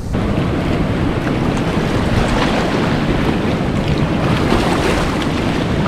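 Steady rush of breaking surf, with wind buffeting the microphone and a heavy low rumble.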